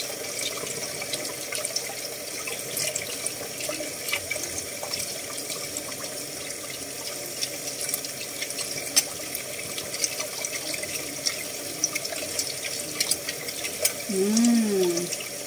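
Tap water running steadily into a pot of water as a hard-boiled egg is peeled under the stream, with small scattered clicks. A short hum from a person near the end.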